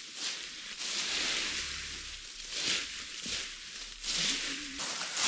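Leaves rustling in repeated handfuls, a little under one a second, as leaves are stripped from branches by hand.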